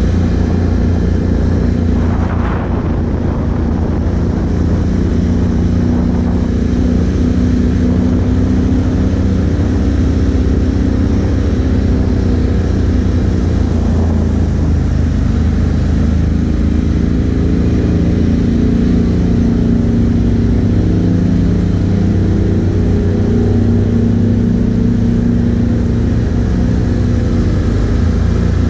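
Can-Am Outlander 1000 ATV's V-twin engine running at low speed, its pitch rising and falling gently with the throttle.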